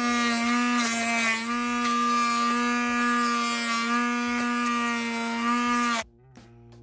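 Electric hand blender running steadily with a pitched motor whine, puréeing onion, herbs, garlic and chili with a little oil and water into a paste in a plastic jug. It cuts off suddenly about six seconds in.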